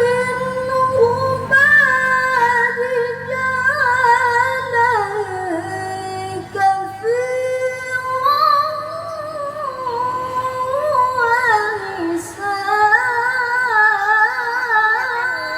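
A woman reciting the Qur'an in melodic tilawah style, holding long ornamented notes with wavering pitch, with falling runs at the ends of phrases.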